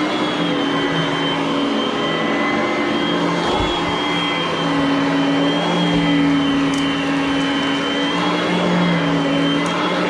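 Oreck vacuum cleaner running steadily: a motor hum with a high whine whose pitch wavers slightly, plus a few faint low thumps.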